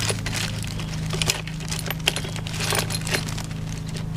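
Old steel Welsh (freeze) plugs clinking together as a hand rummages through them in a plastic bag: a run of small, irregular metallic clinks. A steady low hum runs underneath.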